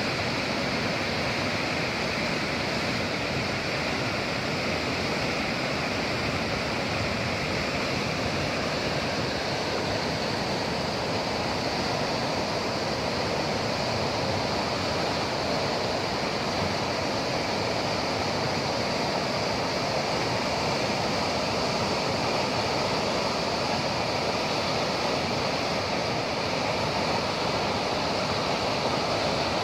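Reservoir water rushing with great force under an open sluice gate into a canal: a steady, unbroken rushing of turbulent whitewater.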